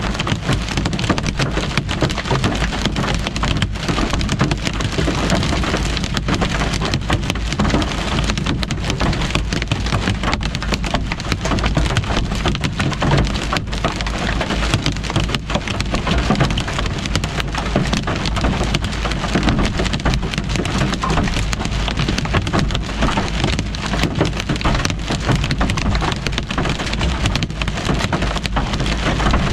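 Heavy rain and hail drumming on a car's roof and windshield, heard from inside the cabin: a steady, dense pelting of many small sharp impacts that never lets up.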